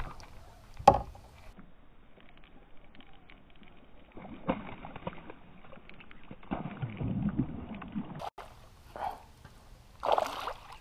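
Kayak and fishing handling sounds on the water: a sharp knock about a second in, then soft intermittent rustling and water noise, with a short louder splash-like burst near the end.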